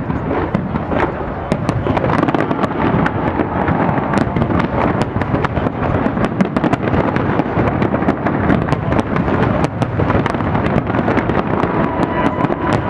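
Fireworks display going off in a dense, continuous barrage, with many bangs and crackles overlapping without a pause.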